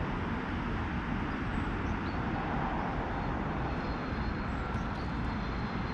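Steady low vehicle rumble, with no distinct events standing out.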